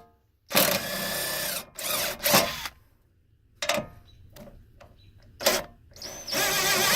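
DeWalt cordless impact driver run in several bursts on mower-deck bolts: about a second of hammering from half a second in, a shorter burst after it, then a few quick blips and a longer run starting near the end.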